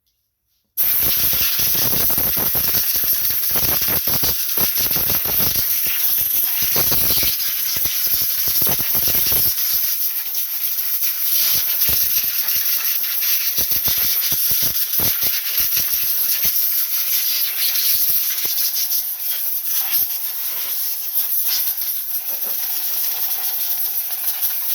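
Compressed air blowing a mouse nest out from under the engine shroud: a loud, steady hiss that starts about a second in, with low bumps and rattles over roughly the first nine seconds as the air hits the debris.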